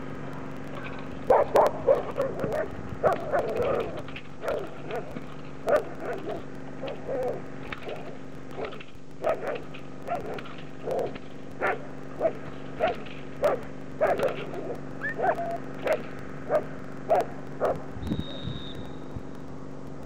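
Belgian Malinois barking repeatedly in short, sharp barks, about one or two a second, loudest in a quick cluster near the start, holding a decoy at bay in a ring-sport guarding exercise.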